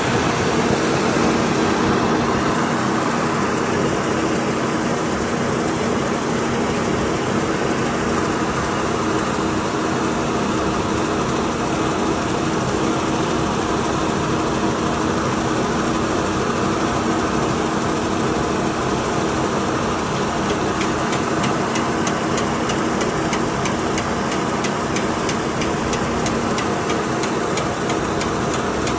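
Heavy diesel engine running steadily at an even speed. Faint rapid clicking joins in over the last several seconds.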